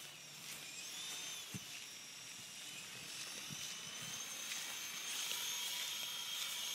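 Small electric motors of an E-sky co-axial RC helicopter whining at a high pitch. The pitch wavers about a second in, and the whine grows louder in the second half.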